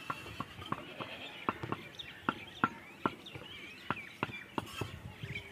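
Outdoor village ambience: a run of irregular sharp taps or clicks, roughly two a second, with small birds chirping high above them.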